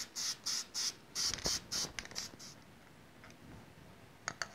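Aerosol can of Permatex spray-on gasket sealant sprayed in a quick series of short hissing bursts, putting a thin coat on an engine base gasket. The bursts stop about two and a half seconds in, and a couple of light clicks follow near the end.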